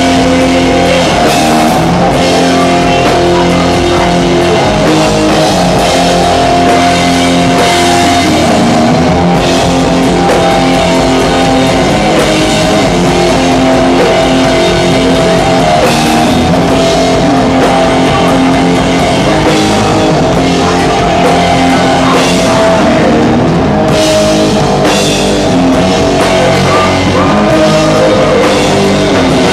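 A doom metal band playing loud live: heavily distorted electric guitar through Marshall stacks, with drums and cymbals and a singer's vocals over the top.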